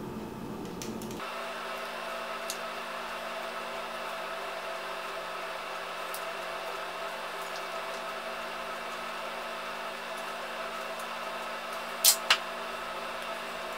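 Steady electric hum with several pitched tones in it. Near the end, two sharp clicks in quick succession.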